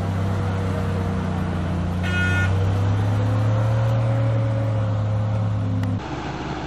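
Old army truck's engine running steadily under load as the loaded truck crawls through mud, its pitch rising a little in the middle; a brief high-pitched squeal about two seconds in. About six seconds in the sound cuts to a quieter tractor engine running.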